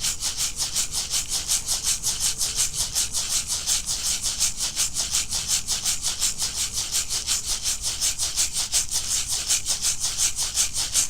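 Shaman's rattle shaken in a fast, even rhythm, steady shakes with no pause, as a trance accompaniment to a shamanic journey meditation.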